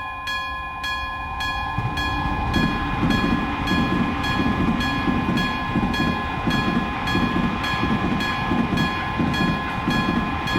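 Railroad crossing warning signal sounding steadily in a regular pulse of about two strikes a second, while a train passes with a rhythmic rumble that builds about two seconds in.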